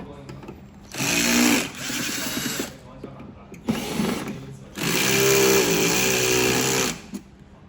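A power drill-driver running in four bursts, the longest about two seconds near the middle, its motor whine shifting in pitch under load as screws are backed out while the board is being dismantled.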